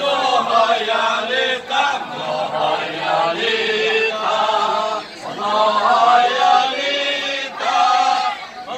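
A group of men singing a slow, chant-like song together, in long held phrases with short breaks about five seconds in and near the end.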